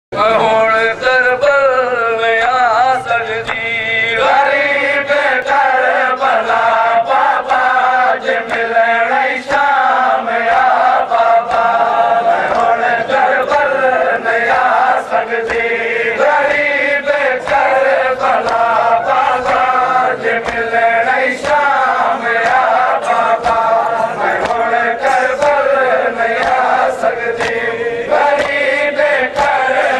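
Seraiki noha, a Shia mourning lament, chanted by a male reciter with a crowd of men joining in. A steady beat of sharp strikes runs under the chant, the hand-on-chest beating of matam.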